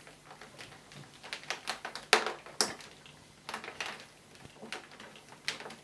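Power cord being wound around the cord hooks of a Vax Floormate hard floor cleaner: uneven light clicks and taps of the flex against the machine's plastic body and hooks, with two louder knocks a little after two seconds in.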